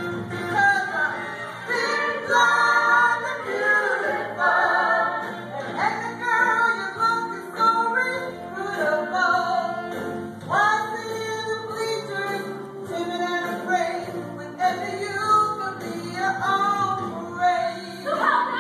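A woman singing a belted, gospel-flavoured show tune over backing music in a live stage-musical performance.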